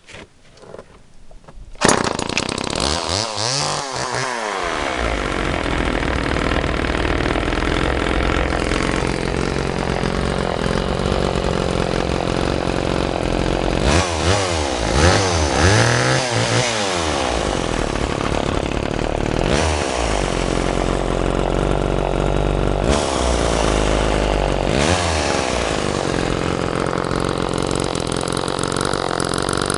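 Vintage Homelite Super 2 two-stroke chainsaw catching suddenly about two seconds in and then running, its pitch rising and falling several times between steadier stretches.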